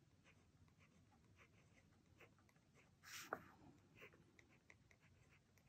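Faint scratching of a Jinhao 82 fountain pen nib on paper in short strokes, with one louder scrape a little past halfway. The nib is writing dry, which the writer puts down to tines set too tight.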